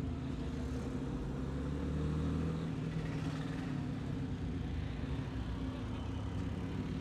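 Motorcycle engine running under way with wind and road noise, heard through a microphone inside the rider's helmet; the engine gets a little louder about two seconds in, then settles.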